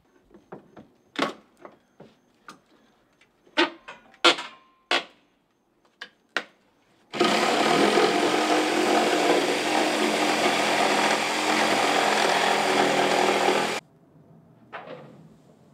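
Scattered sharp knocks and taps, then a handheld power tool, drill-like, running steadily and loudly for about six and a half seconds before stopping abruptly near the end.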